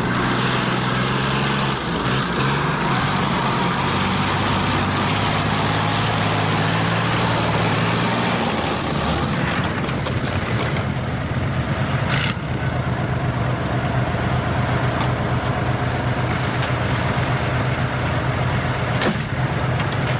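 BMP-1 infantry fighting vehicle running on its tracks, its UTD-20 V6 diesel engine droning steadily under the noise of the running gear. The engine note shifts about eight seconds in, and a couple of sharp knocks come through later.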